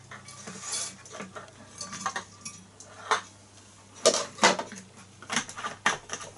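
Irregular metallic clinks and taps from a long metal rod knocking against a Davies Charlton toy hot air engine, with a few sharp, louder knocks in the second half.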